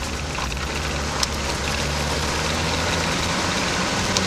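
Škoda Fabia RS TDI rally car's diesel engine running at a steady, unchanging speed, heard from inside the cabin, with two short clicks, about a second in and near the end.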